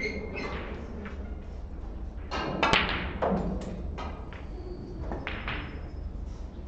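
Snooker shot: sharp clicks of the cue on the cue ball and of the ball knocking against the table's cushions. The loudest knocks come a little under three seconds in, with lighter knocks before and after.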